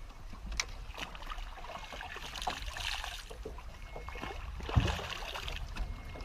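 Water splashing and lapping at the side of a small boat, with a single hard knock on the boat about five seconds in.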